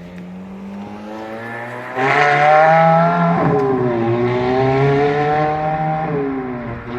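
Ferrari F430's 4.3-litre naturally aspirated V8 running, then revved hard about two seconds in; the revs dip and climb again before easing off near the end.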